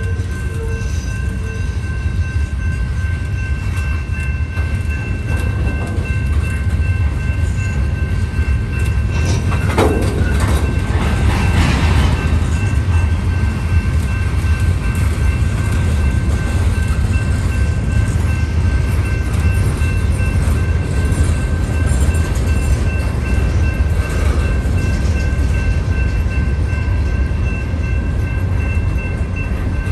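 Freight train cars rolling past at close range: a steady low rumble of wheels on rail. A brief squeal comes about ten seconds in, and steady high ringing tones run underneath.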